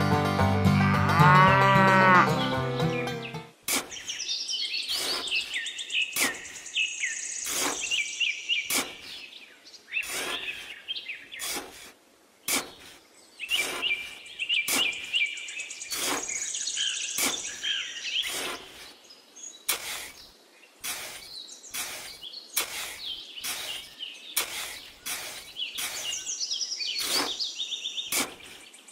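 A cow moos loudly for about three and a half seconds, then stops abruptly. After that a small trowel digs into damp sand in short scraping strokes, about one or two a second, with birds chirping behind.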